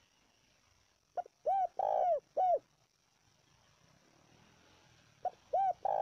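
Spotted dove cooing. About a second in comes one phrase: a short note, then three arched coos, the middle one longest. The same phrase starts again near the end.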